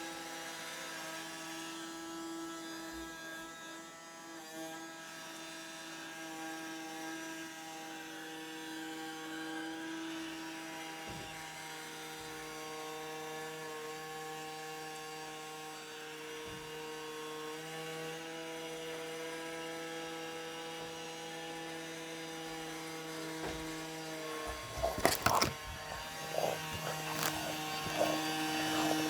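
Roomba robot vacuum running: a steady motor hum and whine, its pitch shifting slightly now and then. About 25 seconds in, a cluster of knocks and clatter.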